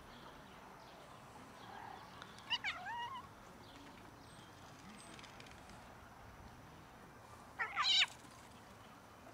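Two cat calls: a bending meow about two and a half seconds in, then a louder, shorter cry near the end from a cat fending off another cat's advances with its mouth open.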